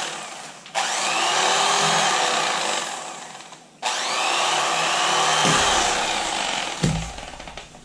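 Electric fillet knife running in three bursts as it cuts a fillet off a fish, its whine wavering as the blade bites. It winds down over the last couple of seconds, with two low thumps near the end.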